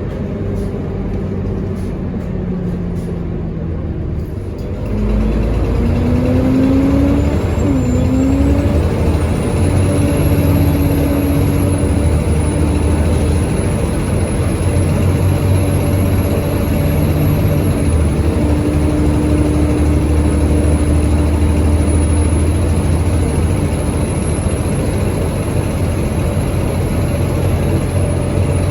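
Volvo B7TL bus's diesel engine running under load, growing louder about five seconds in, with a high turbo whistle that rises in pitch a couple of seconds later and then holds steady over the engine drone. This is the bus's loud turbo and 'hoover' noise.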